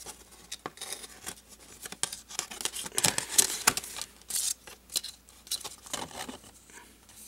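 A printed cardboard artwork card being handled and fitted into its little stand: irregular scraping and sliding of card, with small clicks and taps, busiest around the middle.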